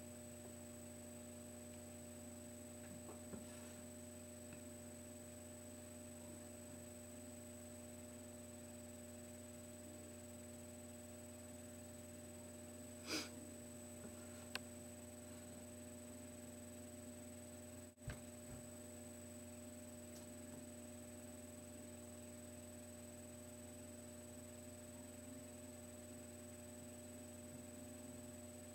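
Steady low electrical hum with a thin high whine above it, faint and unchanging. It is broken by a short breathy noise about halfway through, a small click just after, and a brief dropout with a click a few seconds later.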